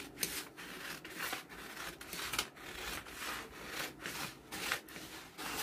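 Large dressmaking shears cutting through two layers of folded paper along a pattern line, a run of short crisp snips about two a second.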